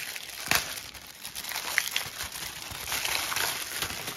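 Small plastic packets of resin embellishments crinkling and rustling as they are handled and opened, with a sharp click about half a second in.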